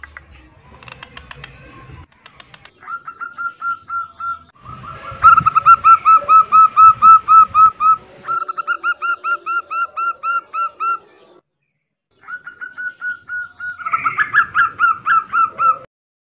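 Female zebra dove (perkutut) in breeding condition calling to males: rapid runs of short, repeated cooing notes, about five a second, in several bouts with brief breaks.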